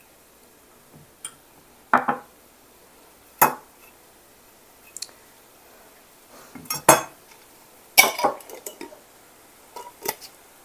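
Kitchen knife knocking on a cutting board and clinking against a small dish: scattered sharp clacks every second or two, a few of them in quick pairs, while garlic is cut.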